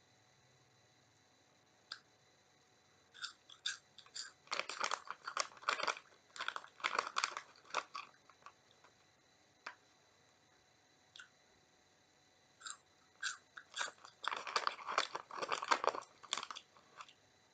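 Close-up crunching and chewing of Oriental Super Ring puffed cheese-ring snacks, in two bouts of rapid crunches separated by a pause of a few seconds.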